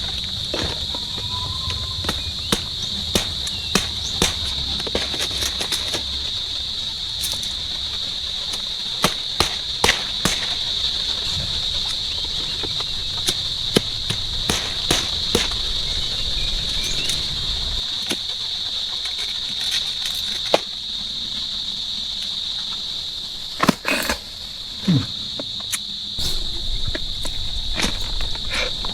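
Steady high-pitched insect chorus in the swamp, with scattered sharp clicks and knocks over it, the loudest a few seconds before the end.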